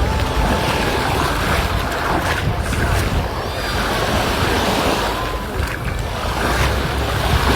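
Sea waves washing onto the beach in a steady wash, with wind buffeting the microphone as a low rumble.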